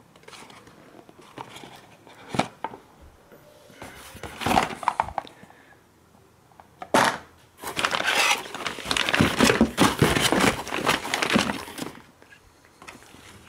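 Plastic packaging crinkling and cardboard boxes rustling as boxed car parts are handled, with a couple of sharp knocks (about two and seven seconds in) and dense crinkling from about eight to twelve seconds in.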